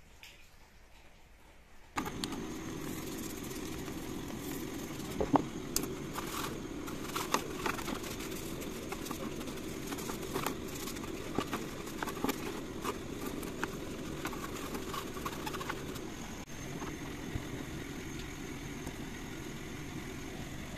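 A soft detailing brush scrubbing foamy cleaner on a black plastic interior part, with scattered sharp clicks of the brush against the plastic. Under it is a steady low mechanical hum that starts about two seconds in.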